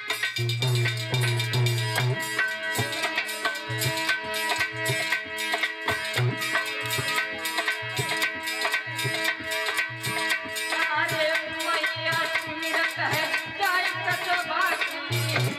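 Indian devotional bhajan music: a hand drum keeps a steady beat of deep bass strokes under held melodic notes. A man's voice comes in singing about eleven seconds in.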